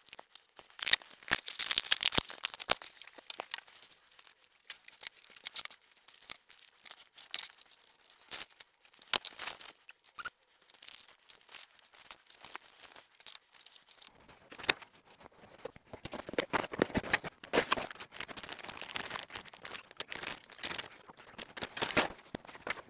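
Packaging being opened and handled by hand: plastic crinkling and tearing, with a dense run of small clicks and taps that gets fuller and louder in the second half.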